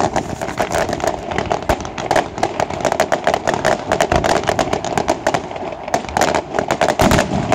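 Fireworks display: a dense, continuous run of crackling pops and sharp bangs, with a few deeper booms among them.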